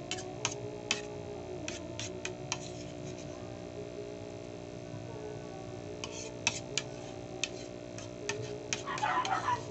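Metal spoon clinking and scraping against a ceramic plate in irregular sharp ticks while someone eats porridge, over a steady low hum. A brief rougher, noisier burst comes near the end.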